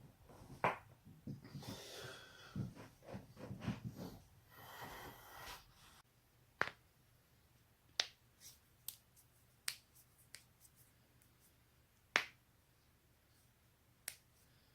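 Human joints being cracked: sharp single pops, about eight of them at irregular intervals in the second half, after a few seconds of soft rustling movement with one pop near the start.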